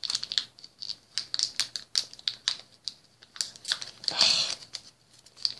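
Trading cards being handled: a run of quick, light, irregular clicks and snaps as cards are flicked through and sorted. About four seconds in comes a louder half-second crinkle of a foil booster-pack wrapper.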